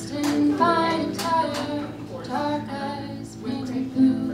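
A woman singing a melody with held notes, accompanying herself on acoustic guitar with strummed chords.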